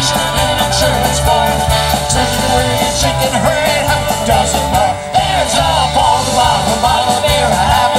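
Live rock band playing an instrumental break between sung lines, a fiddle bowing the melody over electric guitars, bass guitar and drum kit.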